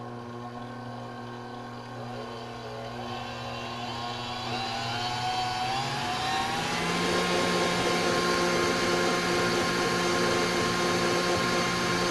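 Smeg 5-quart, 600-watt stand mixer's motor running with the paddle turning in an empty bowl. It starts at low speed, rises in pitch and gets louder between about four and seven seconds in as the speed dial is turned up, then holds a steady higher hum, not too overly loud.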